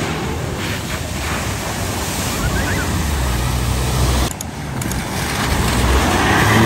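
Pickup truck driving through a flooded ford: the rush and splash of its bow wave and spray over the low rumble of its engine, breaking off for a moment a little past four seconds in and building again towards the end.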